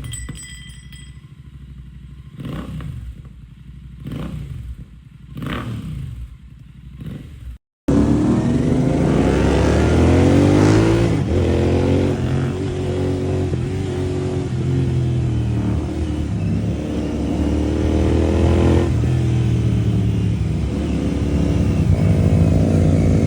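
Royal Enfield GT 650's parallel-twin engine through a Red Rooster performance exhaust with the dB killer fitted: about five short throttle blips, then, after a sudden cut, a much louder stretch of continuous running with the engine pitch shifting slightly.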